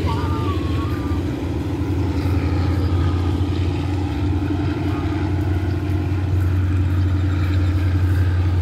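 Steady low drone of a running engine that grows slightly louder toward the end.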